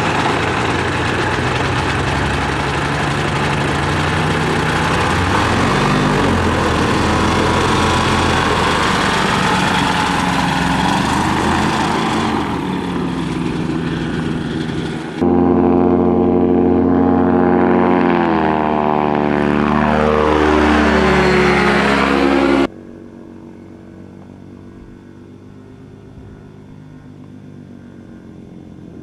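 Light aircraft engine and propeller running at high power for a takeoff run. About fifteen seconds in the sound jumps abruptly louder, and the pitch then falls as the plane passes. Near the two-thirds mark it cuts suddenly to a faint, distant engine drone.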